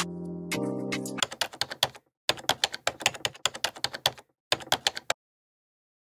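Intro music with held notes ends about a second in, then a rapid run of keyboard-typing clicks, in quick bunches with short breaks, stops abruptly a little after five seconds in.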